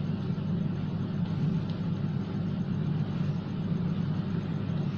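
Steady low rumble, even in level, with no clear pitch changes or strokes.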